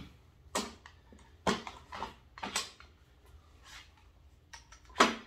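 Tools and a clamp being handled on a workbench: scattered knocks and clatters with quiet between them, the loudest near the end.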